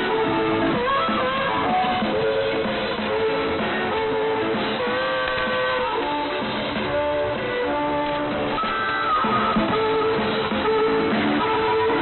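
Guitar-led music played by a pirate shortwave station, heard through an AM shortwave receiver, so it is cut off above about 4 kHz.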